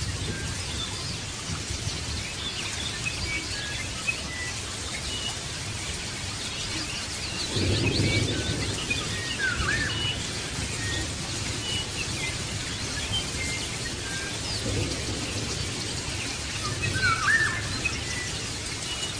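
Small birds chirping and whistling, short scattered calls over a steady background hiss. There is a swell of low rumbling about eight seconds in, and a louder swooping call near the end.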